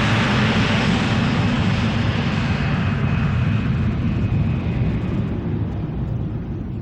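1967 Cessna 150H's Continental O-200 engine and propeller running steadily with a deep drone. Over the last couple of seconds the sound fades and loses its upper hiss.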